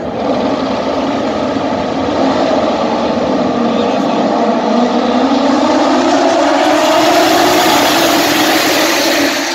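A pack of Moto2 racing motorcycles with Triumph 765 cc three-cylinder engines accelerating off the grid at a race start. Their engine notes blend into one dense sound that rises steadily in pitch and grows louder as the bikes come down the straight.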